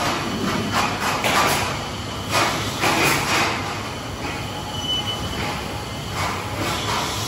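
Steady machinery noise of a welding workshop, with irregular louder rushes of noise every second or so.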